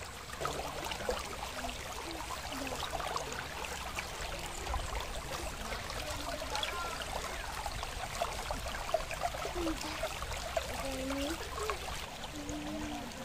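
Shallow river water trickling and gurgling over rocks, with small splashes. The level stays steady.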